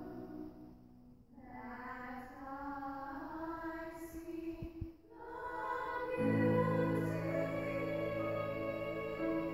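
Girls' choir singing in sustained, blended notes. The sound thins almost to nothing about a second in, the high voices come back, dip briefly again around five seconds, then swell fuller and louder with deeper held notes joining in.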